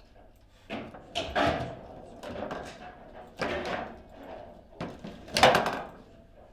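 Table football being played: the ball cracking against the plastic figures and table walls and the rods knocking, in a series of sharp knocks, the loudest about five and a half seconds in.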